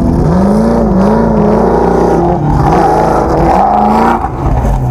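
Off-road desert race buggy engine running hard under a steady low rumble, its pitch rising and falling as the revs go up and down.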